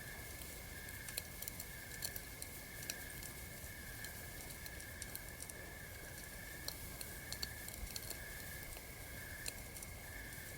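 Campfire crackling with irregular small pops and snaps, over a steady high chirring of night insects that pulses gently.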